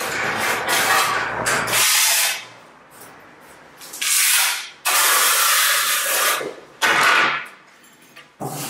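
Notched trowel scraping tile adhesive across the floor in a series of strokes, some short and some over a second long, with brief pauses between them.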